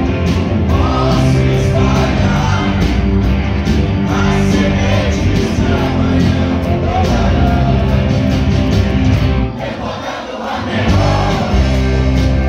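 Live rock band playing: electric guitars, bass and drums with a voice singing, heard from the audience in a hall. About ten seconds in, the bass and drums drop out briefly, then the full band comes back in.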